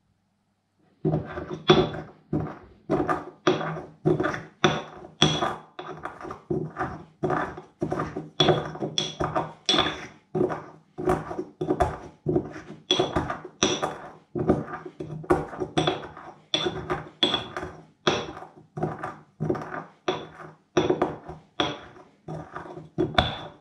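Pestle pounding and grinding whole spices, black peppercorns among them, in a white ceramic mortar. A steady run of knocking strokes about two a second, each with a short high ring from the bowl, starting about a second in.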